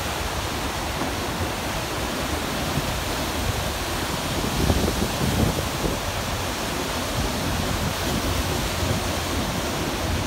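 Steady rush of the Arkansas River's high, muddy rapids, with a low rumble underneath.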